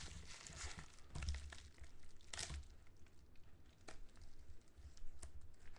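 Faint rustling and tearing of a padded paper mailer being opened, with a few light clicks and scrapes as a hard plastic card case is slid out of it.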